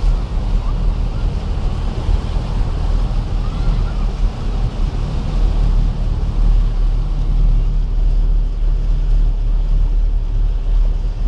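Nissan Patrol Y60 driving through deep floodwater, heard from inside the cab: a steady low engine rumble under a continuous wash of water against the vehicle.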